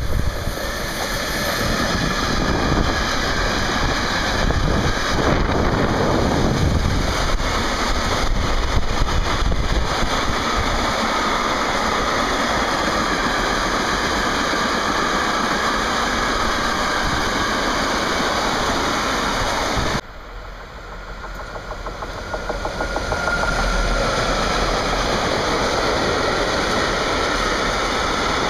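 Freight trains passing close by: a steady rumble and rattle of wagon wheels on the rails. About twenty seconds in it cuts abruptly to a second freight train, whose noise swells over a few seconds as it draws level and then holds steady.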